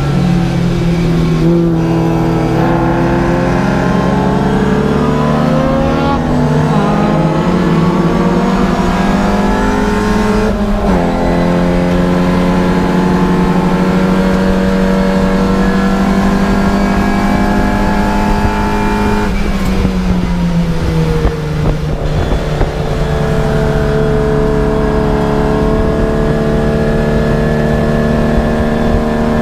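Race car engine heard from inside the cabin, its pitch climbing as the car accelerates, dropping sharply at a gear change about ten seconds in, then holding steady. Near twenty seconds the revs fall away as the driver lifts off, then they climb slowly again.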